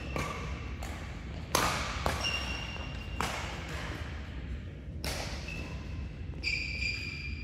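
Badminton rally: sharp racket hits on the shuttlecock, about five of them, the loudest about a second and a half in, with short high-pitched sneaker squeaks on the court floor between them.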